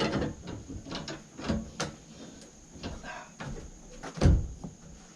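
Sawmill log clamp being worked to hold timbers down on the mill bed: scattered metal clicks and knocks, the loudest a heavy knock about four seconds in.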